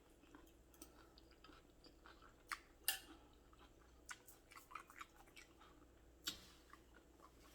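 Quiet eating sounds close to the microphone: soft chewing with scattered small clicks and smacks, a few louder ones near three seconds in and again past six seconds.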